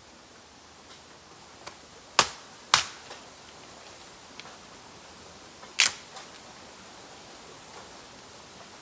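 Bamboo burning in a bonfire, popping: three sharp, loud bangs (about two seconds in, again half a second later, and near six seconds) with smaller crackles between them over a faint steady hiss. These are sealed bamboo sections bursting as the air and moisture inside heat up.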